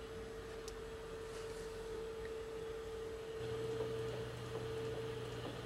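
A faint, steady electrical hum-like tone, with a lower hum joining about three and a half seconds in.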